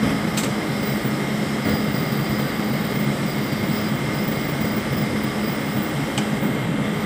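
Steady drone of ship's machinery, with a constant low hum under an even noise. Two faint clicks come, one just after the start and one near the end.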